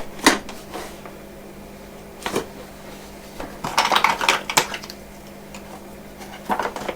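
Hard clattering knocks from a clogged Milwaukee M18 shop vac being handled: single knocks at first, then a quick cluster of rattling knocks about four seconds in, and another knock near the end.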